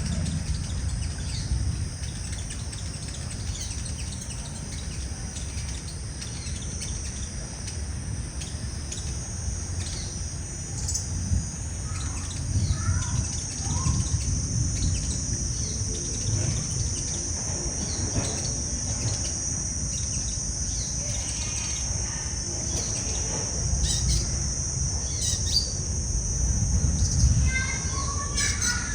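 Sunbirds giving short, high chirping calls on and off, busiest near the middle and near the end, over a steady high-pitched insect drone.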